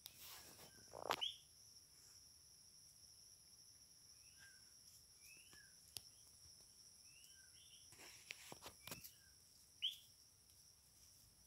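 Quiet woodland ambience: a steady high insect drone with short, rising bird chirps every second or so. Rustling in dry leaf litter comes near the start and again about eight seconds in.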